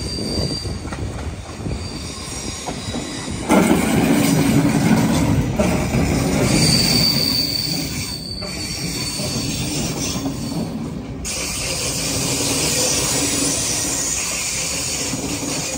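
Yellow-and-blue NS intercity electric train running past close by. A loud rumble of wheels on rail swells suddenly about three and a half seconds in, and high-pitched wheel squeal rings out near the start and again around the middle.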